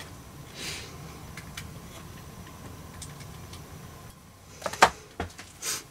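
Light clicks and taps of a small label and thin tool being handled against a wooden switch panel, a few faint ones at first and a sharper pair about four and a half seconds in, over a low steady hum.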